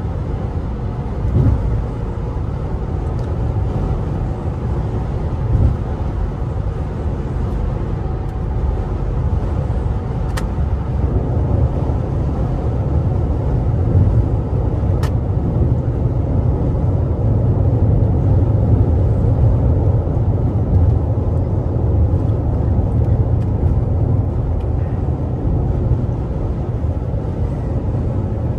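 Inside the cabin of a 2020 Toyota RAV4 TRD Off-Road at highway speed: a steady low rumble of road and tyre noise from Toyo Open Country AT3 all-terrain tyres, with the four-cylinder engine working hard. It grows a little louder about halfway through.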